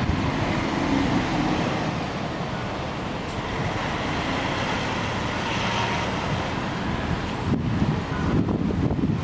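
Strong wind gusting over the microphone, mixed with steady city traffic noise. The buffeting eases into a smoother, even rush through the middle and picks up again near the end.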